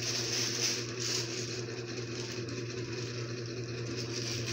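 A steady low mechanical hum with overtones, as of a motor or fan running. Over it, light rustling of a plastic bag as a packaged item is unwrapped, most noticeable in the first second.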